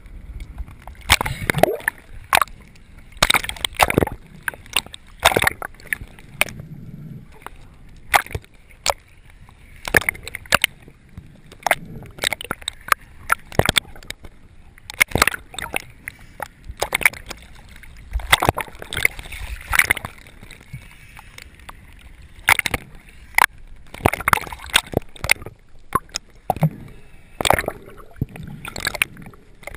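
Water sloshing and splashing in irregular bursts.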